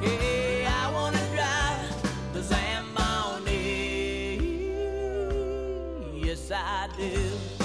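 Background music: a country-style song with a melody line over bass and drums, holding one long note about halfway through.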